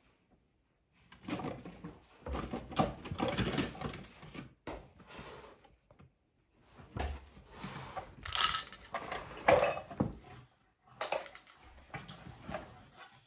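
A capuchin monkey rummaging through a fabric toy storage box: toys rustling and clattering, with sharp knocks, in three spells separated by brief pauses.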